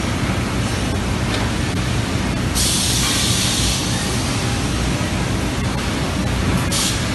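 A steady, loud background noise, with a hiss of compressed air venting starting about two and a half seconds in and lasting about a second, and two shorter hisses near the end.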